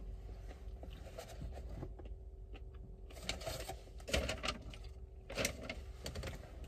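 Faint rustling and a few short scrapes from a person shifting in a car seat and pulling on the seatbelt, over a low steady hum in the car cabin.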